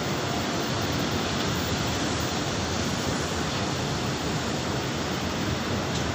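A steady, even rushing noise with no breaks.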